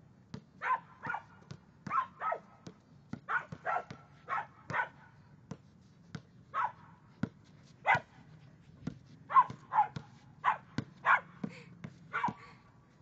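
Six-month-old Samoyed puppy barking excitedly in short barks, often two or three in quick succession, while a basketball is dribbled on the court, its bounces heard as sharp knocks between the barks.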